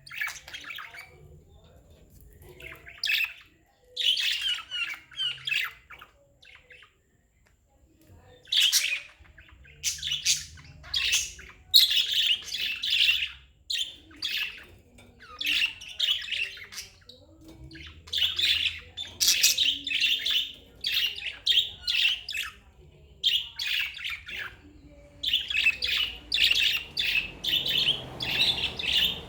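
Budgerigars chirping in repeated bursts of rapid, high chirps, broken by short gaps and a lull of a couple of seconds about a quarter of the way in.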